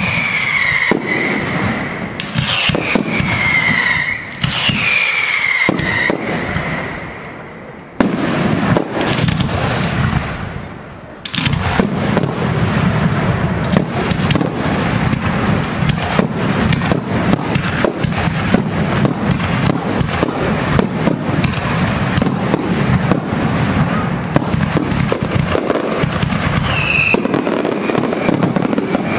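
Aerial fireworks display: in the first seconds several whistles fall in pitch, each lasting about a second. A sharp bang comes about eight seconds in, and from about twelve seconds there is a dense, unbroken barrage of rapid bangs and crackling.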